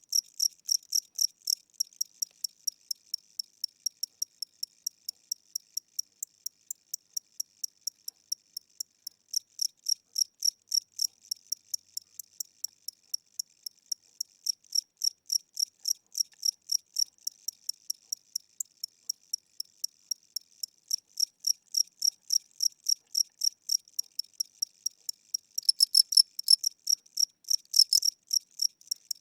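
A single cricket chirping in an even, slow pulse of about three to four high chirps a second, with a couple of louder, rougher chirps near the end. The owner takes the slow tempo for a tired or aging cricket whose wings are weakening.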